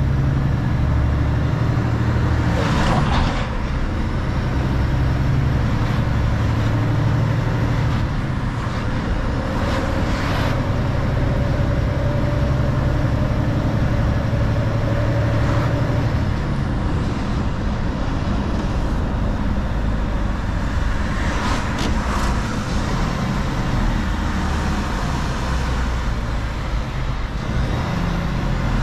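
Mercedes Actros truck's diesel engine running steadily on the road, with a constant rumble of tyre and road noise. A few brief whooshes of passing traffic rise and fade over it.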